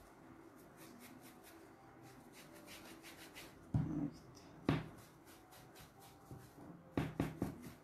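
Stiff bristle brush dry-brushing acrylic paint onto a cloth doll's fabric arm: faint scratchy rubbing in quick strokes, broken by a few short knocks about halfway through and near the end.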